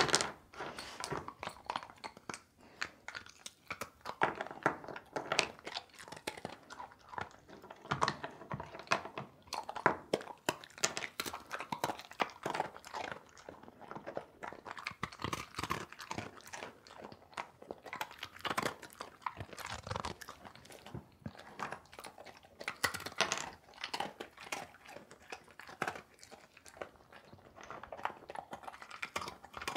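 Eurasian red squirrel chewing and gnawing food held in its paws: a continuous run of quick, crisp, irregular crunches.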